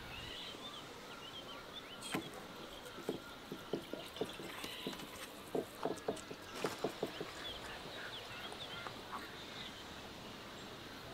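Small birds chirping in the background, with a cluster of soft pats and taps in the middle from hands pressing ground lamb patties on an aluminium tray.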